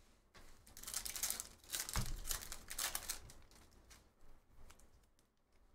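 Trading cards and foil pack wrappers being handled: a run of crinkling and rustling for about three seconds, with a soft knock about two seconds in, then quieter, scattered rustles.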